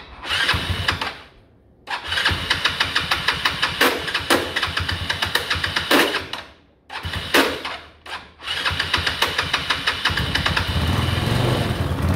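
Electric starter cranking a freshly rebuilt Yamaha Cygnus-X scooter engine in four runs with short breaks, the engine turning over in a fast, even rhythm without running. The scooter will not start after its full engine kit was fitted, and the owner doesn't know why. In the last run the sound grows louder and deeper.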